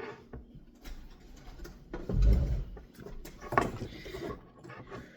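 Rubbing, scraping and handling clicks as a small object is scrubbed clean, with a heavy low bump about two seconds in.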